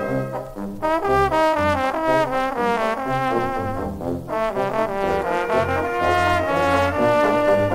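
Wind band playing a polka: a brass melody with trombones and trumpets over short, repeated low bass notes, easing off briefly about half a second and four seconds in.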